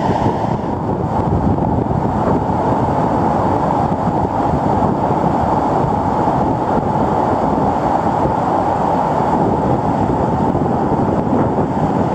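Steady, loud rush of a Colorado River whitewater rapid pouring around boulders.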